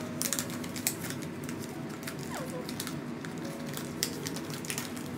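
Paper wrapping crinkling and rustling as it is handled and pulled away from a small potted plant, with scattered sharp crackles.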